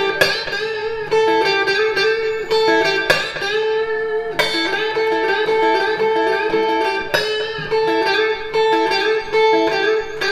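Stratocaster-style electric guitar playing a short blues lick over and over, alternating a fretted note with a string bent up a whole step to the same pitch, as a string-bending exercise.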